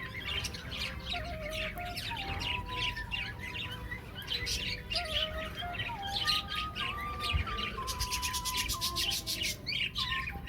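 A colony of budgerigars chattering and chirping without a break, many short high chirps overlapping.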